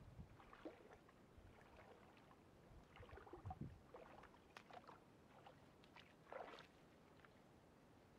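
Near silence, with faint scattered small splashes and ticks of calm lake water around a wading fly angler.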